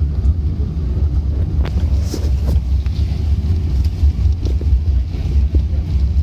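Cabin noise of an Airbus A380-800 taxiing: a steady low rumble from its four Engine Alliance GP7270 engines at taxi power and the rolling airframe, heard through the cabin wall. A few light knocks come about two seconds in.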